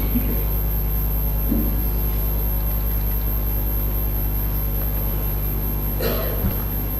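A steady low hum, with a brief faint sound about a second and a half in and a short clatter near the end.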